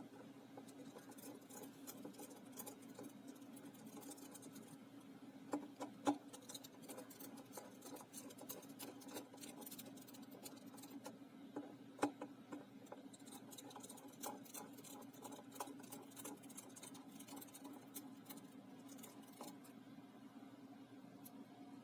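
Small Phillips screwdriver backing out the tiny screws of a smartwatch's plastic back cover: faint scattered ticks and clicks, with a few louder clicks about six and twelve seconds in, over a steady low hum.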